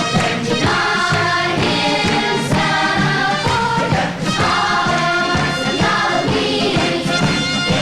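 Children's choir singing an upbeat praise song with band accompaniment and a steady beat.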